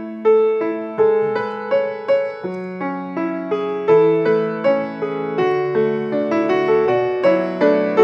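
Piano playing the slow introduction of a hymn, a steady run of notes about three a second with chords sustained beneath.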